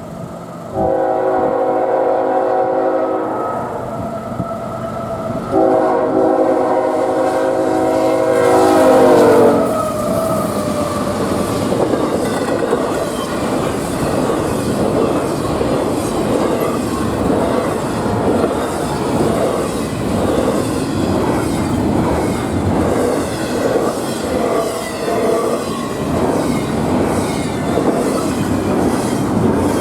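Freight locomotive air horn sounding a chord twice, a short blast and then a longer one that drops in pitch as the locomotive goes by. Then the train rolls past, with wheels clacking over the rail joints and rail cars rumbling.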